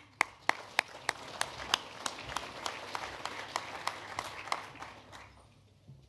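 Audience applauding, with one close clapper striking sharply about three times a second over the crowd's clapping. The applause dies away a little after five seconds in.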